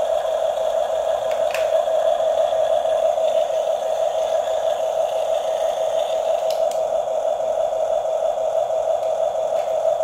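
Steady electric-motor and gearbox whine from radio-controlled toy bulldozers, one even high tone with a few faint clicks.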